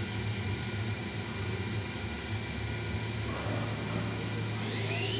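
Daewoo Mynx 500 vertical machining center spindle running steadily at 2,000 RPM over a low machine hum. Near the end, a rising whine as the spindle begins to speed up.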